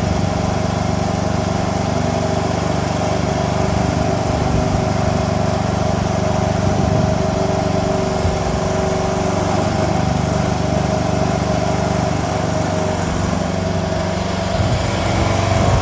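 The small engine of a MIVA Model 15 mini excavator running steadily, with a slight rise in level near the end.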